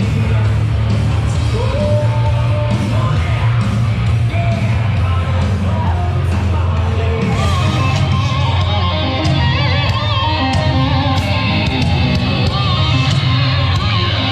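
Loud rock music with electric guitar, steady drum hits and singing.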